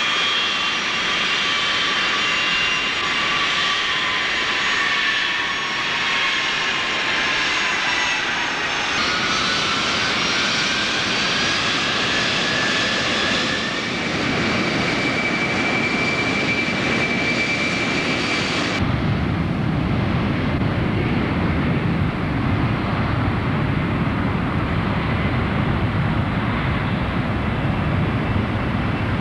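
Boeing 747-300 jet engines whining with several high tones, some sliding in pitch, as the airliner taxis. About two-thirds of the way through, the sound switches abruptly to a deep, steady rumble of the engines at takeoff thrust as it rolls away down the runway.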